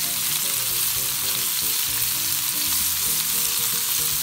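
Pork-wrapped tomato rolls sizzling steadily in the fat rendered from the pork in a hot frying pan, as they are turned with chopsticks.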